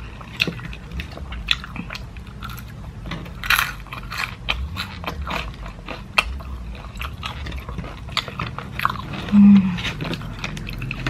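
Close-miked biting and chewing of crispy-coated fried chicken (KFC salted-egg Golden Egg Crunch), with small crackling crunches and wet mouth sounds throughout. A short, loud hummed "mm" comes about nine seconds in.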